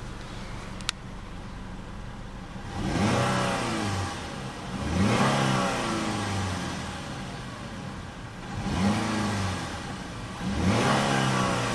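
2013 Chevrolet Malibu ECO's 2.4-litre four-cylinder engine idling, then blipped four times, each rev rising and falling back to idle. A single sharp click sounds about a second in.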